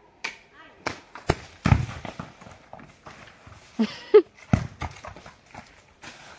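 Two heavy, deep thuds of coconuts dropping onto dry ground, one about two seconds in and another about three seconds later. Between them come scattered crackles and clicks of steps on dry leaves, and a short vocal cry.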